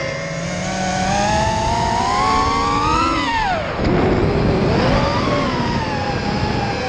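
FPV racing quadcopter's four 2207 2400 kV brushless motors spinning DAL 5040 four-blade props, a several-toned whine whose pitch rises and falls with throttle. A little after three seconds in, the pitch drops steeply as throttle is cut for a dive, then climbs again as the quad pulls out.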